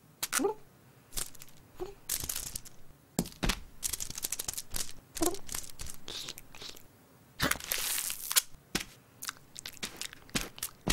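Sticky tape ripping and peeling in a string of short tears, with crinkling as the tape sticks and crumples, and a few brief cartoon cat grunts in between.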